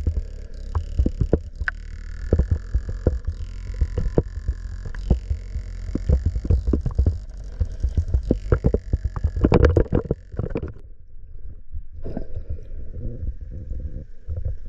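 Water noise on an action camera's microphone while swimming: many sharp knocks and splashes over a steady low noise. About eleven seconds in the higher sounds drop away and it turns duller and quieter.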